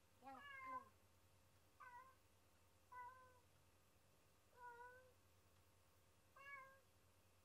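Domestic cat meowing, about five short meows a second or so apart. It is the lonely crying of a cat left home alone, which the owners suspect adds to the stress behind his cystitis.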